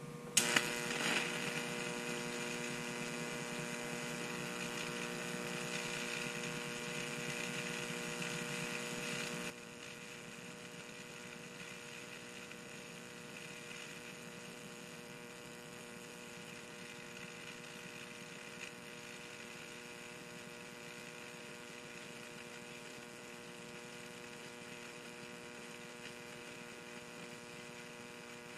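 A 15,000-volt supply buzzing with electric arcing where its electrode tips touch a lithium-ion pouch battery. It starts with a sharp crack about half a second in, then holds a loud, steady electrical buzz. About nine and a half seconds in it drops suddenly to a quieter steady hum.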